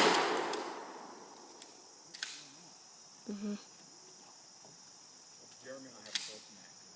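The echo of a gunshot fading away over the first second, then two fainter, sharper gunshots about two and six seconds in, over a faint steady high hiss.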